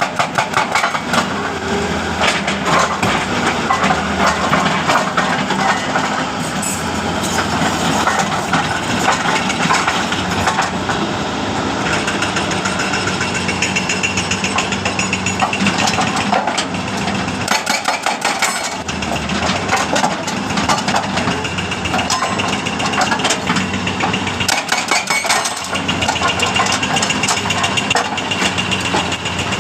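Hitachi jackhammer pounding rock in rapid, even blows over a steadily running engine. The blows are densest near the start and again near the end.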